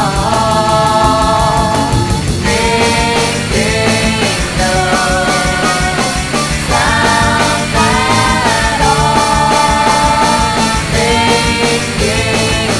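Rock band demo recording: a steady drum beat under bass and a sustained, pitched lead melody line.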